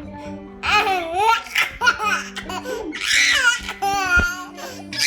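A young child laughing in several high-pitched bouts, with a children's song playing quietly behind.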